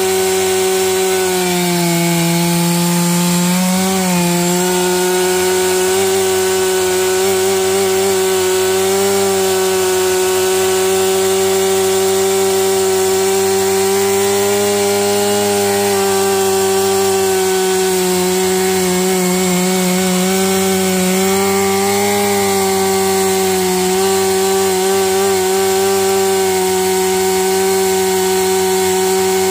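Stihl MS461 two-stroke chainsaw held at full throttle, cutting steadily through a Douglas fir log. The engine note dips slightly a couple of times as the chain takes load.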